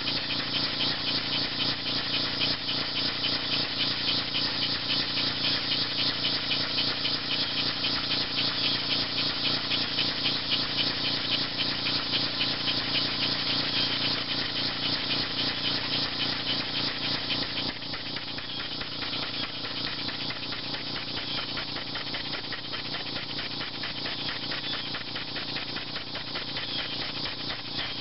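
Homemade compressed-air engine running at speed on about 40 psi from a compressor, with a fast rhythmic beat, under a loud steady drone of cicadas. The whole sound becomes a little quieter about two-thirds of the way through.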